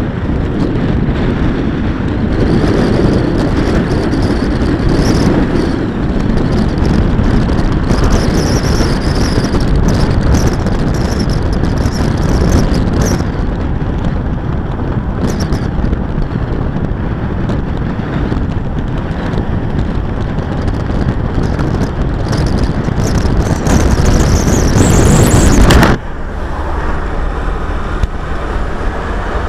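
Steady wind and road noise from a moving car, picked up by a camera mounted on the outside of the car. About three and a half seconds before the end it cuts abruptly to a quieter, steady engine hum heard inside the cabin.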